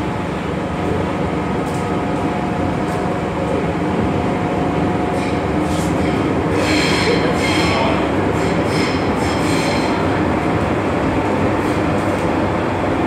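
Inside the carriage of an MTR M-train underway: the steady rumble of wheels on rail and running gear. From about the middle, a high wheel squeal rises over it for a few seconds.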